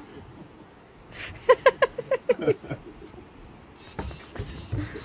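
A man laughing: a quick run of about eight short, high "ha" sounds around a second and a half in, followed by a few soft knocks near the end.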